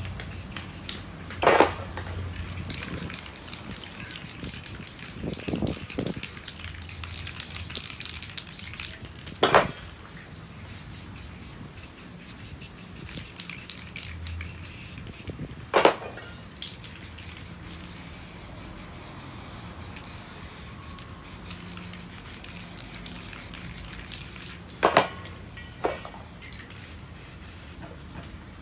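Aerosol spray paint cans hissing in many short bursts as paint is sprayed onto a canvas, with about five sharp knocks in between.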